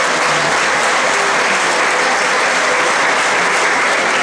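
Audience applauding steadily: a dense, even clapping that holds at a constant level.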